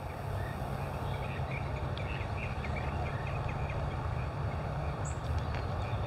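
Plain chachalacas calling, a run of short chattering notes mostly in the first half, over a steady low rumble.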